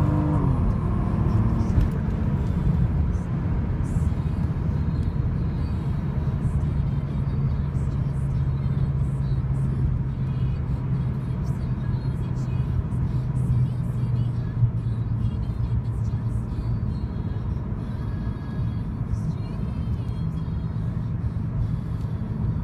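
Ford Falcon BF XR6 Turbo's turbocharged straight-six heard from inside the cabin: high revs fall away within the first half second, then a steady low engine drone with road noise as the car cruises in a higher gear and slows down.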